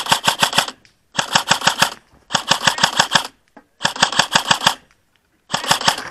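AR-style airsoft rifle fired on full auto in five short bursts, each a rapid, even string of sharp clacks lasting under a second, with brief pauses between bursts.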